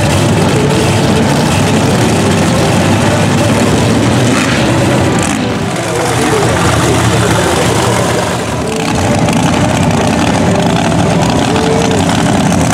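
Mega trucks' big engines running loud and revving on a dirt track, with brief dips in the sound about six and about eight and a half seconds in.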